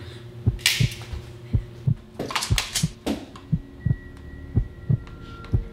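Heartbeat sound effect: regular low thumps about twice a second over a steady low hum, with a few short hissing rustles about a second in and again around the middle.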